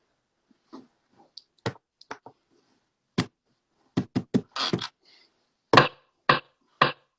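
An irregular series of sharp taps and knocks, about a dozen, some in quick pairs and the loudest near the end.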